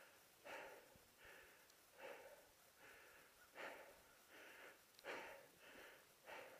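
Faint breathing of a person, a slow, even run of soft breaths in and out.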